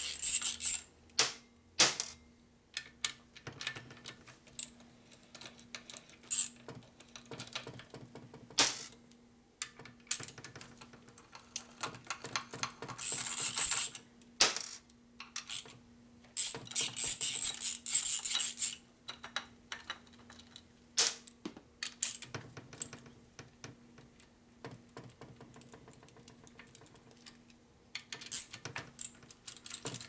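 Hand ratchet clicking in quick runs, twice for a second or two, as bolts on a Harley-Davidson shovelhead engine case are run down, with scattered metallic clinks of the socket and tools in between, over a faint steady hum.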